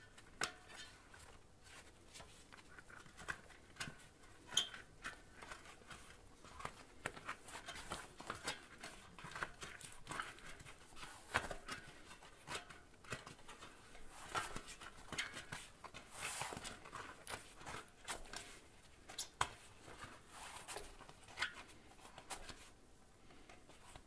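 Hands working a rubber inner tube into a bicycle tyre on its rim: faint, irregular rubbing of rubber with many small clicks and taps against the wheel.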